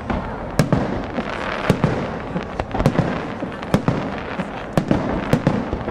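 Aerial fireworks shells bursting: about eight sharp bangs at irregular intervals, some less than a second apart, over a continuous dense background noise.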